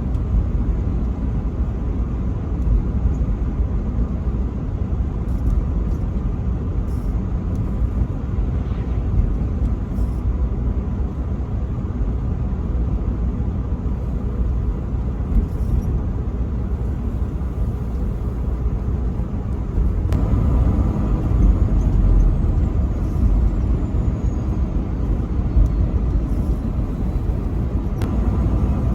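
Steady low rumble of a truck driving on the highway: engine and road noise, growing somewhat louder about twenty seconds in.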